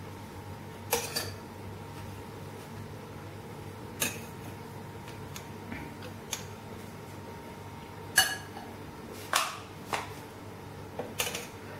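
Steel spoon clinking against a dish and a stainless-steel puttu tube as grated coconut is spooned in: about nine separate metallic clinks with short ringing, spaced a second or two apart, over a faint steady hum.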